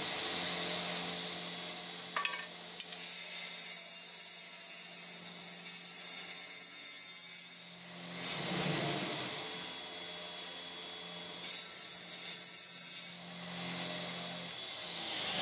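Sliding table saw running with a steady hum and high whine, its tilted blade cutting through the bottom rail of a timber window sash to bevel it to match the sill. Two cuts, the first lasting about four seconds and the second a shorter one about three-quarters of the way in.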